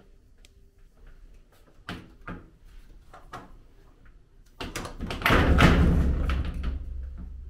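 Louvered wooden closet doors being handled and pulled shut: a few light knocks, then a louder sliding rattle and thump about five seconds in that fades over the next two seconds.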